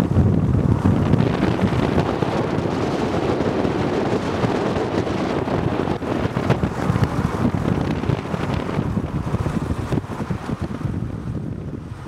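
Wind buffeting the camera microphone: a steady, gusting rumble.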